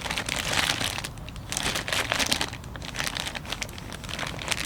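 Plastic packaging crinkling and rustling in irregular bursts as clutch kit parts are unwrapped by hand.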